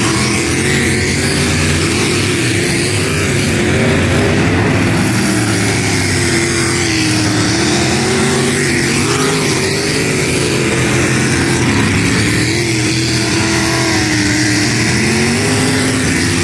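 Race car engines running hard during a race, the engine note rising and falling continually as the throttle comes on and off around the track.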